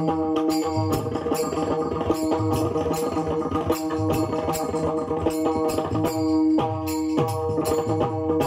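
Warkari devotional music: pakhawaj drum keeping a steady beat of sharp strokes under sustained melody notes.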